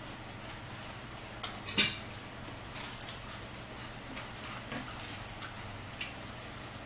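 Close-up eating sounds: scattered chewing and lip-smacking clicks, with a fork now and then clinking against a plate.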